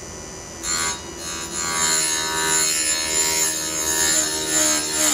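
12-volt bar-mounted chain grinder's motor running, its stone grinding a chainsaw cutter tooth: a brief touch about a second in, then a longer steady grind with a whining pitch and a hiss. The stone is only lightly brushing the tooth to sharpen it.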